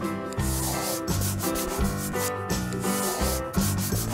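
Scribbling coloring-in sound effect: a run of rough rubbing strokes, like a crayon on paper, over children's background music.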